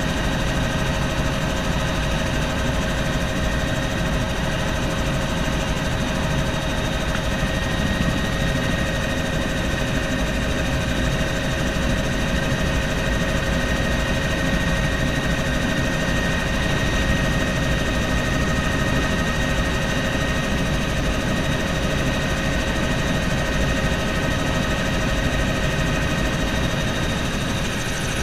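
Helicopter engine and rotor noise heard inside the cabin in flight: a steady drone with a constant high whine, unchanging throughout.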